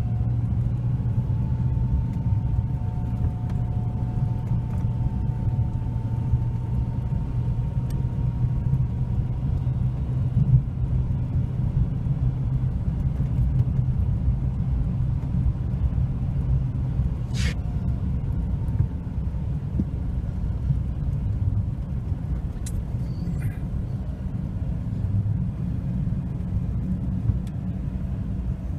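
A steady low rumble, with a brief sharp click about two-thirds of the way through.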